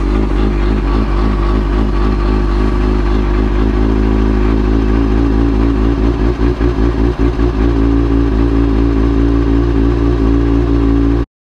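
Kawasaki ZX-6R 636 inline-four engine running through a newly fitted exhaust, mostly steady but with an uneven, stumbling patch about six to seven and a half seconds in; the owner has said he doesn't like a sound it makes and questions whether it is right. The sound cuts off abruptly near the end.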